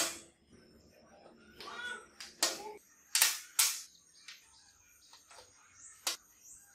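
Homemade square-steel-tube welding clamp handled on a metal bench: a sharp metal clank at the start, then a few short clacks and scrapes as its hinged handle is lifted and moved, and one more click about six seconds in.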